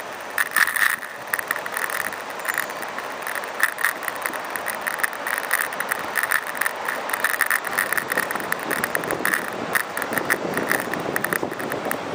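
Bicycle being ridden along a paved road, its front basket and the camera stand on it rattling and knocking over and over with the jolts, over a steady rolling noise.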